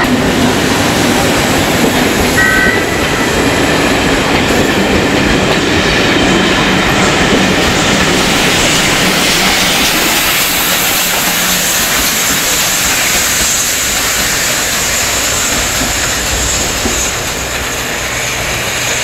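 Trains passing close by: a steady rumble and clatter of wheels on the rails, first coaches behind an electric locomotive, then a GWR pannier tank steam locomotive with its train. The high hiss grows stronger in the second half.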